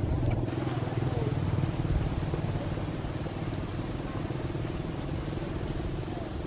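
A motor engine running steadily, a low hum with a fast even pulse that eases slightly after the halfway point. A few faint short chirps sound over it.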